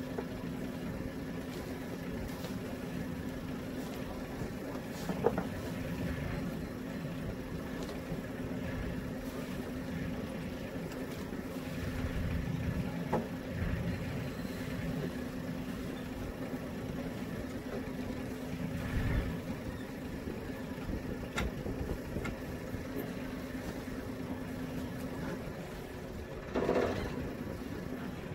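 Hunter 356 sailboat's inboard diesel idling with a steady hum, with a few light knocks of gear on deck. About two seconds before the end, the hum stops as the engine is shut down, with a brief louder rumble.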